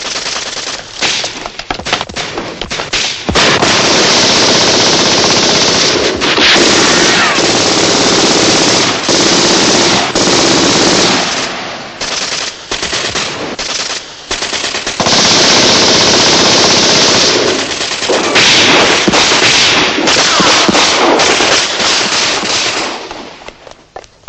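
Automatic gunfire: several submachine guns firing long, rapid bursts in quick succession, with brief breaks between stretches. The firing dies away near the end.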